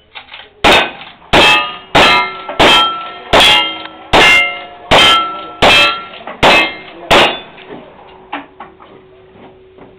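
Ten rapid gunshots, about one every 0.7 seconds, each followed by the clang and ring of a hit steel target. A low ring hangs on for a few seconds after the last shot.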